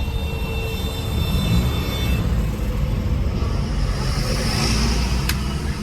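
Steady engine and road rumble of a Honda City heard from inside the cabin while driving, with a single sharp click about five seconds in.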